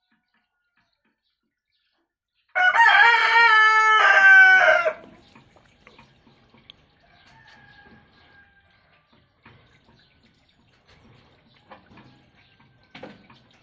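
A rooster crowing once, a loud two-part call that falls in pitch at the end, followed by faint clicks.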